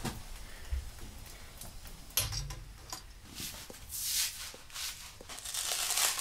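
Hands handling a felt sheet and a damp sheet of paper: soft rustling and brushing, with a knock about two seconds in, growing louder toward the end.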